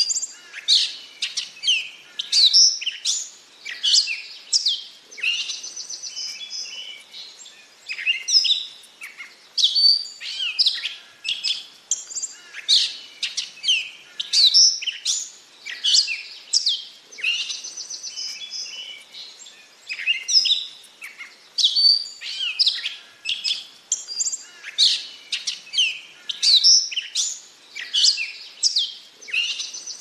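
Gray catbird singing: a long, rambling run of varied short phrases, whistles, squeaky notes and quick up-and-down sweeps, with only brief pauses between them.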